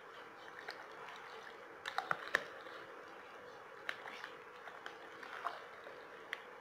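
Steel spoon stirring lemon pickle in a plastic tub: soft wet mixing with a few sharp clicks of the spoon against the tub, the loudest cluster about two seconds in.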